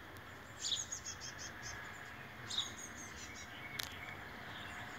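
Tits calling: two quick runs of short, high chirps, the first about half a second in and the second about two and a half seconds in. A single sharp tick sounds just before four seconds in.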